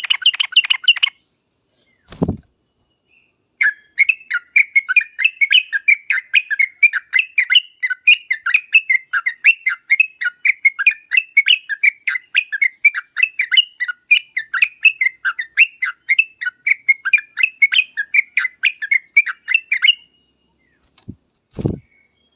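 Yellow-vented bulbul (trucuk) singing a fast, unbroken run of sharp chirping notes, about four or five a second, for some sixteen seconds, after a short opening burst of notes. A low knock comes about two seconds in and two more near the end.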